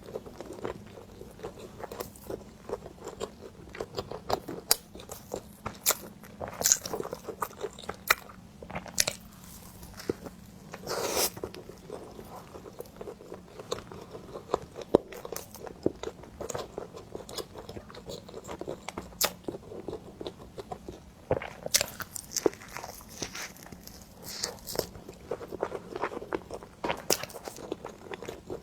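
Close-miked ASMR eating of cream bread: bites and chewing with many short, irregular clicking mouth sounds.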